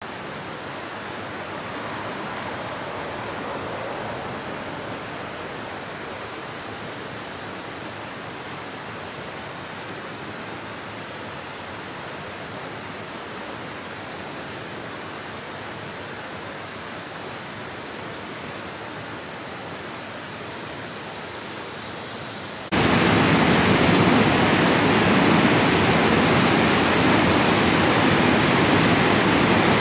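Rushing river water tumbling over rocky rapids, a steady noise. It is fainter for the first twenty-odd seconds, then becomes suddenly much louder about 23 seconds in. A steady high-pitched hiss runs over it throughout.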